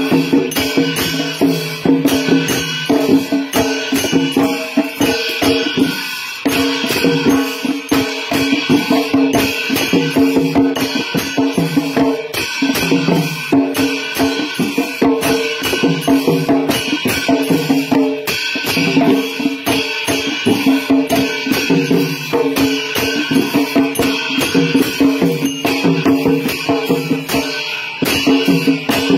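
Traditional Newar festival music for the Lakhe dance: drums beaten with clashing cymbals in a fast, steady, unbroken rhythm.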